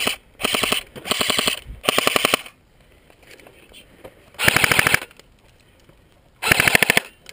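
Airsoft rifle firing full-auto in short bursts of rapid, evenly spaced shots: a quick string of bursts in the first couple of seconds, then two more bursts separated by pauses.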